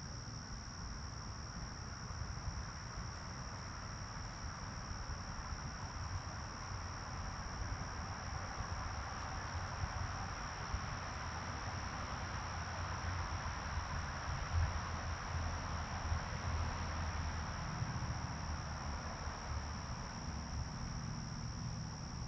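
Crickets calling in a steady, high-pitched night chorus over a constant background hiss.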